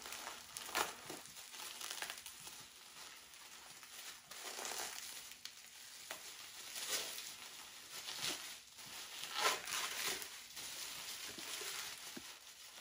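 Plastic bubble wrap crinkling as it is picked at and pulled open by hand, in uneven crackly rustles with louder crinkles about seven and nine and a half seconds in.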